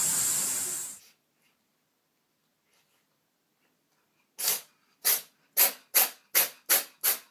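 A steady hiss cuts off about a second in. After a quiet stretch, a pet begins a rapid run of short, sharp sneeze-like snorts, about two to three a second, each dying away quickly; the run speeds up a little and keeps going.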